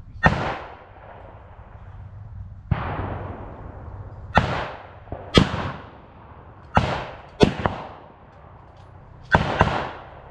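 Scattered gunfire, blank rounds from reenactors' firearms: about ten sharp shots at irregular intervals, several in quick pairs, each followed by an echoing tail.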